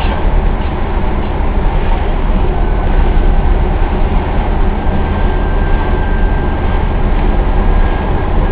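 Engine and road noise inside a Lada Niva's cabin while driving slowly in traffic: a loud, steady low rumble with a faint, thin whine running through it.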